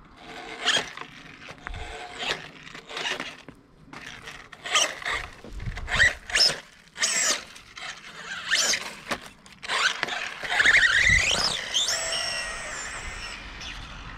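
Small 1/18-scale electric RC car driving hard: a string of short bursts of motor and tyre noise, then, about ten seconds in, a high squealing whine that rises in pitch and holds high near the end as it speeds up.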